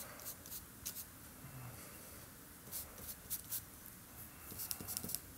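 A paintbrush dabbing and stroking thick paint onto the painting surface, in short faint scratchy strokes with a quieter pause around the middle.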